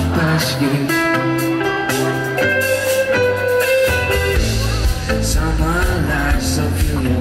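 Live pop-rock band playing: sustained guitar and keyboard chords over drums and bass. The low bass comes in strongly about four seconds in.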